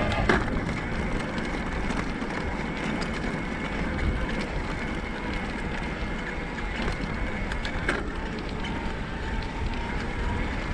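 Electric mountain bike with a Bosch mid-drive motor ridden along a gravel track: steady tyre noise and wind on the microphone, with a faint steady motor whine. Two sharp knocks from bumps, one at the start and one about eight seconds in.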